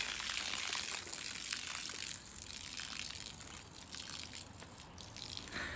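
Water pouring out of a slit-open plastic freezer bag onto grass, easing from a gush to a thin trickle and slowly fading.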